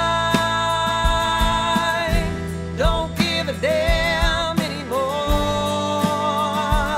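Music: a song's break with no words, a lead melody of long held notes with vibrato that slide up into each new note, over bass and drums.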